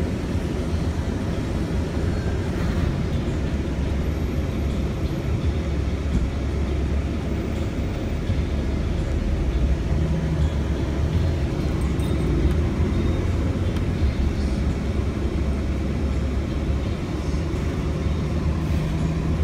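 Steady low rumble of a moving car's engine and tyres heard from inside the cabin.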